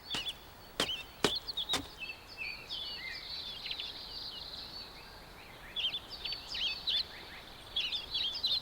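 Birds chirping and twittering in a continuous high-pitched chorus. Four sharp clicks come in the first two seconds.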